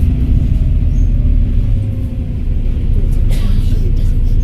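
Volvo B7RLE bus's diesel engine and drivetrain running under way, a deep steady rumble with a faint whine sliding down in pitch over the first couple of seconds. There is a short hiss about three seconds in.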